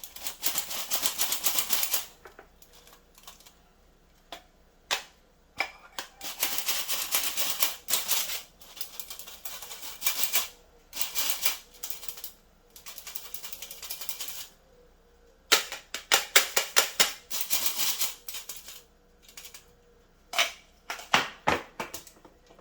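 Hand flour sifter being worked, a rapid clicking rattle coming in bursts of one to three seconds with short pauses between.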